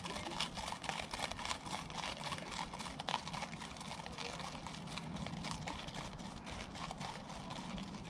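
Hooves of two ridden horses clip-clopping at a walk on a gravel track, moving away, a quick irregular run of light crunchy hoof falls.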